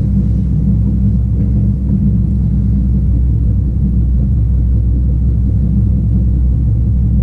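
Cammed 392 Hemi V8 (6.4-litre) with long-tube headers and straight pipes, idling with a steady deep rumble, heard from inside the cabin. The big cam makes the idle shake the whole car.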